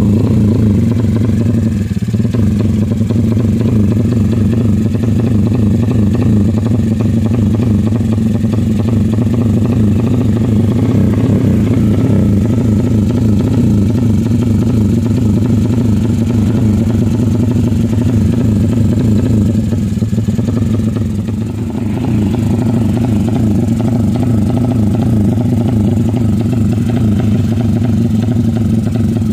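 A motorcycle engine running loud and steady, held at a constant speed with no clear rises or falls in pitch. Its loudness dips briefly about 21 seconds in.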